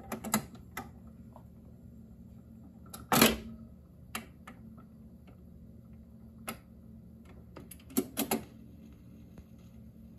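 1964 Decca hi-fi record changer cycling after its control knob is switched on: a series of mechanical clicks and clunks, the loudest about three seconds in and a quick group of three near the end, over a steady low hum.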